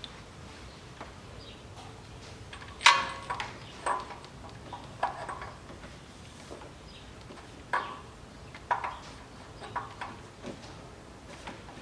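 Sharp metallic clinks and knocks of steel parts and hand tools while camshaft gears are being fitted, about eight irregularly spaced strikes with a brief ring, the loudest about three seconds in.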